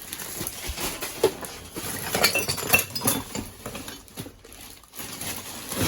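Hard household items clinking and clattering as a pile of discarded goods is rummaged through by hand. There is a run of sharp clinks about two to three seconds in.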